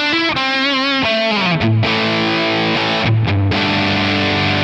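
Electric guitar played through a Neural DSP Quad Cortex capture of a Marshall Super Bass 100 amp on a drive setting. It plays a quick single-note lead line with bends and vibrato, then distorted chords struck and left to ring.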